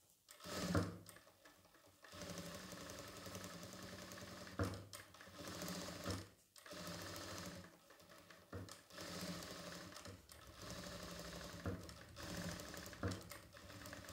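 Jack F4 direct-drive industrial lockstitch sewing machine stitching in short runs, pausing and restarting several times, with sharp knocks at some of the stops. The operator is slowing and stopping with the needle down at each chalk mark to practise speed control.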